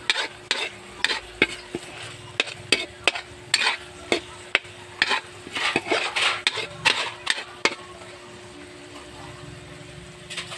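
Metal spatula scraping and clanking against a wok while stir-frying, with food sizzling in the oil. The strokes come quickly for about eight seconds, then stop, leaving the steady sizzle.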